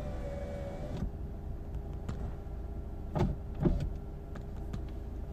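Car at a standstill with a steady low rumble; an electric window motor whines briefly and stops about a second in. Two dull knocks about half a second apart come around the middle.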